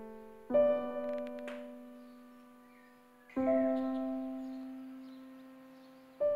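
Slow, soft piano music: three chords struck about three seconds apart, each left to ring and fade away.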